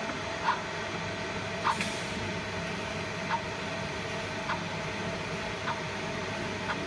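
Fiber laser marking machine with a rotary chuck running with a steady hum while it marks the inside of a metal ring, with short chirps about once a second.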